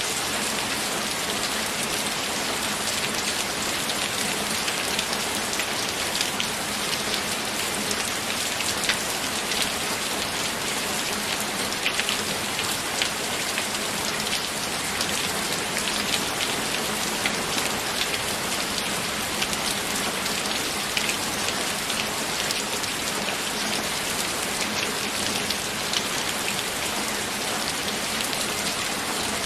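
Steady rain falling, with many individual drop hits standing out sharply against the even hiss.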